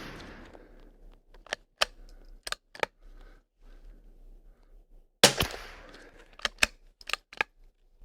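A single .22LR rifle shot from a Kimber bolt-action about five seconds in, with a fading echo of about a second. Quieter metallic clicks before and after it are the bolt being worked to eject and chamber a round.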